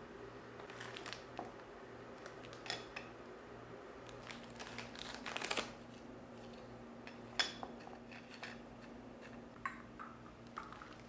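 Cracker packet crinkling as crackers are pulled out, most heavily about halfway through, with light clicks of crackers and glass dishes and tea cups being set down on a table.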